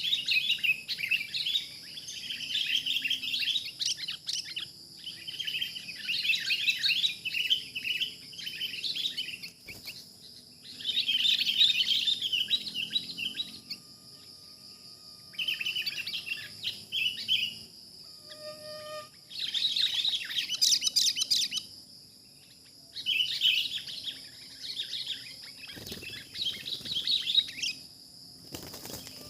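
Sooty-headed bulbuls chattering in repeated bouts of rapid calls, each bout a few seconds long with short pauses between, over a steady high insect drone.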